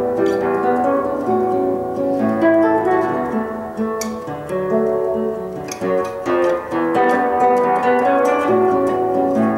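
Solo classical guitar played fingerstyle, a flowing passage of plucked notes left to ring over one another, with a few sharper accented notes along the way.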